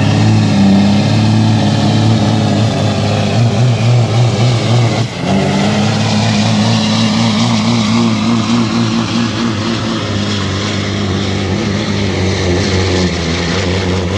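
Semi truck's diesel engine at full throttle, pulling a weight-transfer sled down a dirt track. It runs loud and steady, dips briefly about five seconds in, then holds on under load.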